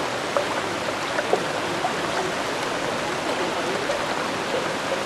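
Fast-flowing floodwater rushing past in a steady, even wash of noise, with a few small sharp ticks in the first two seconds.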